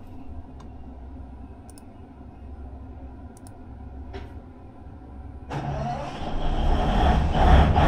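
Engine of a 1250 kVA generator set starting about five and a half seconds in, then running up to speed with its sound building steadily, over a low steady hum.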